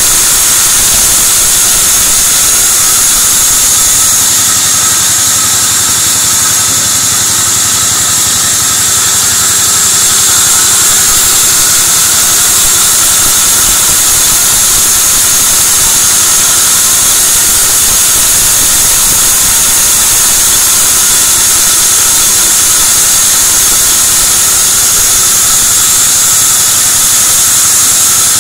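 Sawmill band saw running steadily and ripping a long plank of white teak (gmelina) fed along its table: a constant loud hiss with a steady high whine.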